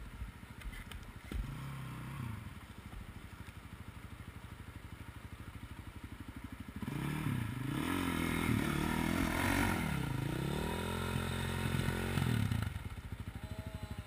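Dirt bike engine idling steadily; about seven seconds in, a second dirt bike's engine revs up and down repeatedly for about six seconds as it is worked up out of the creek onto the bank, then drops back to idle.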